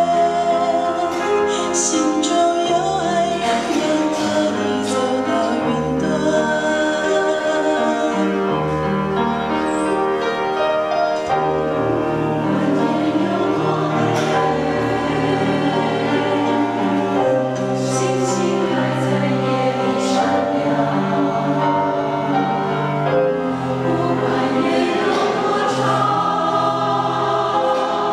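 Mixed choir of men's and women's voices singing a Chinese-language hymn in sustained, flowing phrases.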